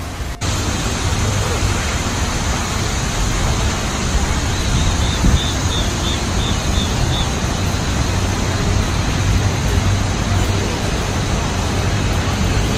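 Steady outdoor rushing noise with a heavy low rumble, briefly cutting out just after the start. Midway through, a short run of about eight quick, high chirps.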